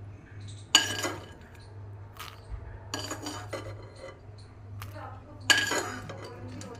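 Metal kitchenware clinking while roasted makhana (fox nuts) are added to a stone mortar. There are a few sharp, ringing clinks: a loud one about a second in and another about five and a half seconds in, with lighter taps between them.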